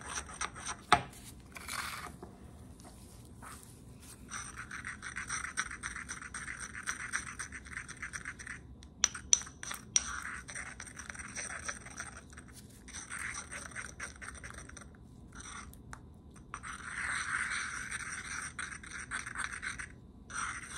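Ceramic pestle scraping and grinding around a mortar, working gum acacia powder into a cream base, in stretches of a few seconds with short pauses. A few sharp knocks of the pestle against the bowl: one about a second in and two close together a little before the middle.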